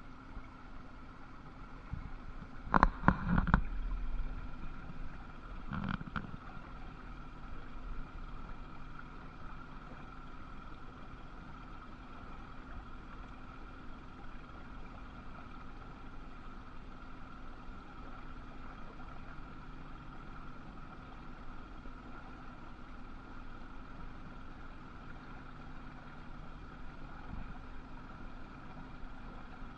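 Steady machinery hum with a few fixed tones, heard across a harbour. A cluster of loud knocks comes about three seconds in, with a low rumble after it, and a smaller one about six seconds in.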